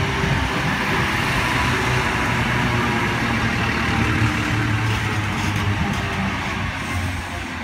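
Endeavour diesel railcar set rolling slowly past close by as it arrives at the platform: a steady low engine hum under the rumble of its wheels on the rails, easing off a little near the end.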